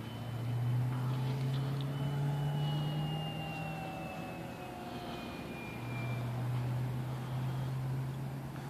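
Electric RC P-47 Thunderbolt with a 1250kv brushless motor whining in flight, its pitch falling slowly as it flies past and away. A steady low hum sits underneath, dropping out for a couple of seconds partway through.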